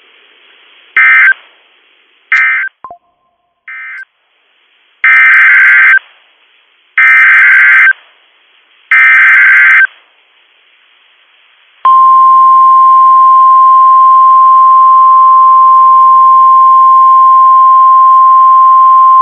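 Emergency Alert System data bursts: two short bursts early on, then three buzzing header bursts about a second each, evenly spaced, marking the start of a new alert. About 12 seconds in, a long steady single-pitched warning alert tone begins and holds.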